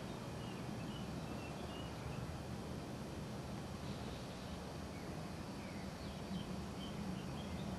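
Quiet mountain outdoor ambience: scattered short bird chirps over a steady low rumble.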